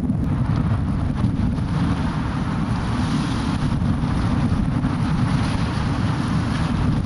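Wind buffeting the microphone: a steady, uneven low rumble, with a rough outdoor hiss above it that grows a little after about two seconds.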